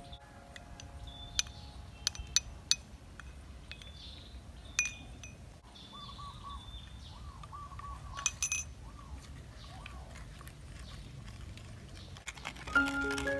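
A spoon clinking a few times against a clay mortar and small bowls as seasonings are spooned in, sharp single clinks with gaps between them. Light mallet-percussion background music comes back in near the end.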